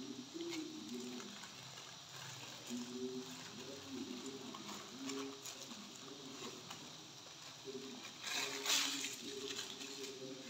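A shawarma roll's paper wrapper rustling and crinkling as the roll is folded and wrapped by hand, with scattered small handling clicks and one louder crinkle about eight seconds in. Faint low pitched sounds carry on underneath.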